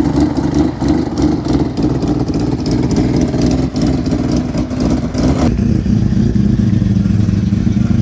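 Loud car engine running with a steady, rough note. About five and a half seconds in, the sound changes abruptly to a lower, duller note.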